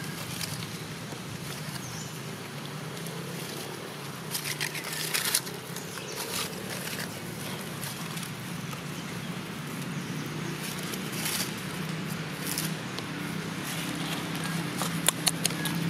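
Dry leaf litter rustling and crackling as monkeys move over it, in short spells about four to five seconds in, near eleven seconds and with a cluster of sharp crackles near the end, over a steady low hum.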